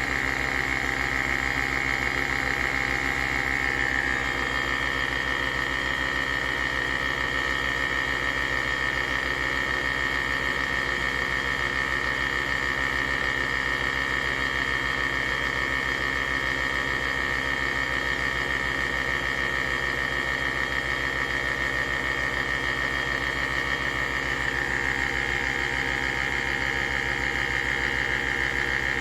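Nespresso Vertuo coffee machine running a brew: a steady pulsing pump hum under a high whine from the spinning capsule. The whine shifts in pitch about four seconds in and again near the end.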